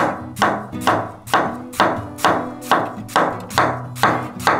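A knife slicing through a red onion onto a wooden cutting board: about ten crisp cuts in a steady rhythm, roughly two a second, each a sharp crunch with a short rustling tail. Light background music plays underneath.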